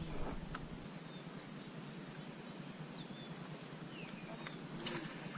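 Faint outdoor ambience: a steady high-pitched insect drone with a few short bird chirps, and a couple of soft clicks near the end.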